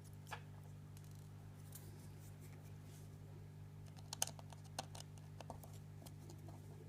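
Faint, scattered small clicks and taps of a precision screwdriver working tiny screws out of an iPhone 5's internal metal plate, most of them from about four seconds in, over a steady low hum.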